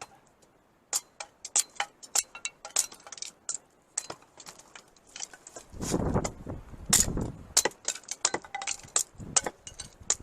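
Camp pot and gear being handled: a run of sharp metallic clinks and knocks, with a louder rustling crunch about six seconds in.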